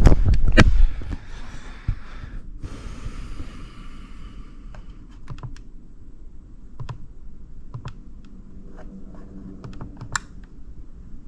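A loud clatter of handling at the start, then a short hiss, then scattered light clicks with one sharper click near the end, typical of buttons being pressed on a newly installed wall thermostat while it is set up and tested.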